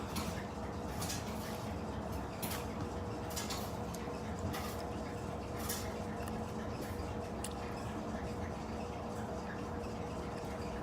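A person eating on camera, with irregular light clicks and taps of utensils against dishes, over a steady faint hum.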